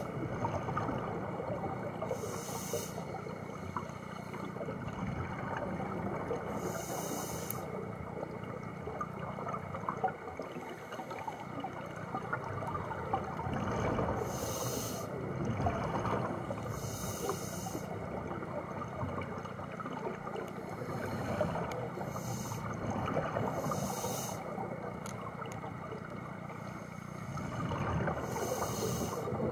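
Scuba divers breathing through their regulators underwater: a short hiss on each inhalation every few seconds, with exhaled bubbles gurgling and rumbling between them.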